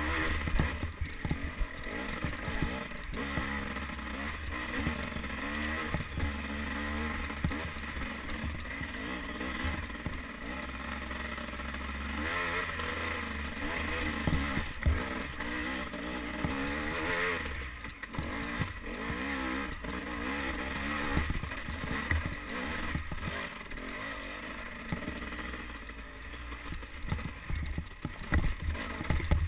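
Dirt bike engine revving up and down over and over as the bike is ridden along a rough trail, with scattered knocks and clatter from the bike bouncing over roots and ruts.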